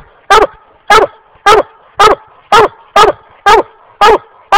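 Black and tan coonhound chop-barking treed: short, loud barks in a steady rhythm of about two a second, each dropping in pitch. This is the hound's tree bark, the sign that it has a raccoon treed.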